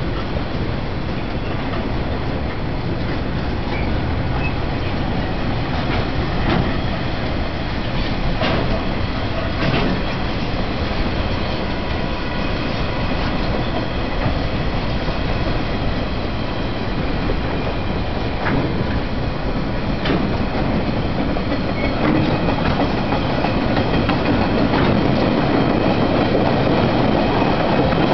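TasRail container freight train's wagons rolling past, steel wheels rumbling steadily with irregular clicks over the rail joints. It grows a little louder near the end as the empty flat wagons go by.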